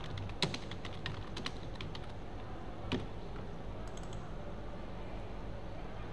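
Typing on a computer keyboard: a quick run of keystrokes in the first second and a half, then a single louder click near three seconds, over a steady low background hum.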